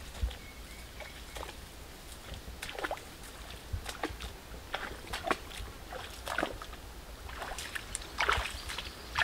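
Footsteps swishing through tall grass and brushing against leafy vegetation, in an irregular series of short rustles, louder near the end.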